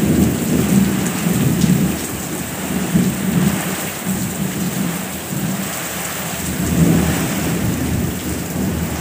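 Heavy rain pouring down on roofs and the yard, with an uneven low rumble of thunder rolling through it.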